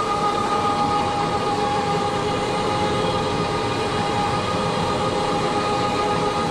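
Rotary carpet-cleaning extractor running with its vacuum hose drawing, a steady rushing drone with a constant high whine.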